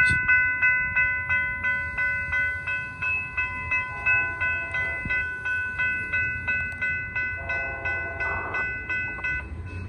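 Railroad crossing warning bells ringing at about three strokes a second, warning of an approaching train, then stopping near the end. A distant train horn sounds briefly about eight seconds in.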